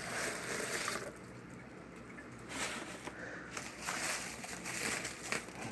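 Rustling and crackling of packaging as a package is opened by hand, in several bursts with a quieter stretch between about one and two and a half seconds in.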